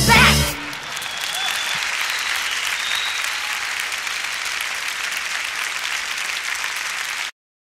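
A song with singing ends on a final note about half a second in, then an audience applauds steadily on the recording. The applause cuts off abruptly near the end.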